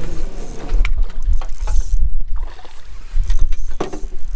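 Scattered knocks and clunks from gear and oar on an inflatable raft, over a low rumble of handling noise, while an angler plays a hooked fish.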